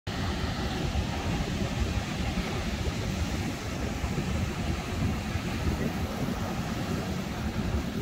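Wind buffeting the microphone with a jittery low rumble, over the steady wash of breaking ocean surf.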